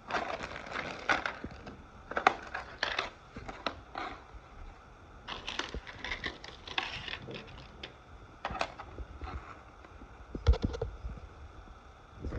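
Irregular bursts of crackling and scraping with sharp clicks, like hard plastic being handled and pried, with a louder knock about ten seconds in.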